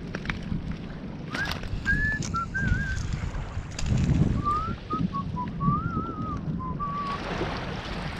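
A person whistling a wandering tune in short, wavering notes, in two phrases with a pause between. Underneath is a low wind rumble on the microphone and the scattered crunch of footsteps on gravel.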